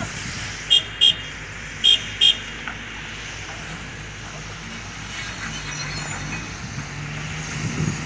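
A vehicle horn beeping two quick double beeps, about a second apart, over the steady low running of diesel machinery.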